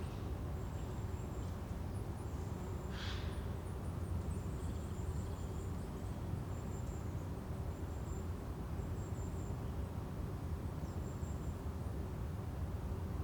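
Forest ambience: a steady low rumble with faint, high chirps coming and going, and a brief rushing sound about three seconds in.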